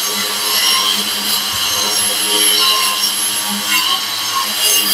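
Brushless wall chaser (wall-groove cutter) running under load, its blades grinding a groove into a wall with a steady motor whine over harsh cutting noise.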